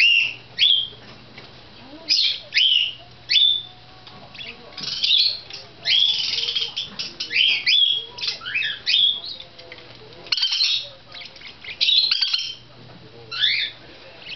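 Pet parakeets chirping and squawking in a rapid string of short, sharp calls, many sweeping downward, with hardly a pause.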